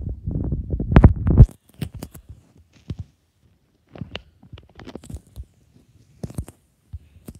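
Low rumbling thumps and handling noise close to the microphone, loudest about a second in, then a scatter of light clicks and knocks as a wooden door with a lever handle is slowly eased open.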